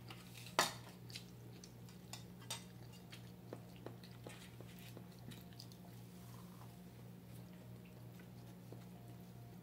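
Quiet eating sounds: soft chewing and scattered light clicks of a fork and fingers on plates, the sharpest about half a second in, over a steady low hum.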